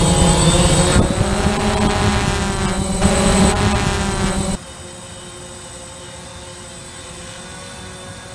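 DJI Phantom FC40 quadcopter's motors and propellers as picked up by the camera on board: a loud whine over rushing wind, its pitch wavering up and down as the motors speed up and slow. About four and a half seconds in it cuts to a much quieter, steady hum of the same quadcopter hovering, heard from the ground.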